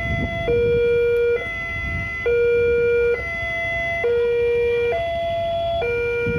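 Railway level-crossing warning siren of the "Alarm Indonesia" type sounding a two-tone alarm. It alternates between a lower and a higher tone, switching a little faster than once a second. It signals that the barriers are down for an approaching train.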